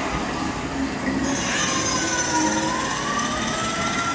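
Dark-ride show soundtrack and effects: a hiss comes in about a second in, with a thin squealing tone that dips and then slowly rises.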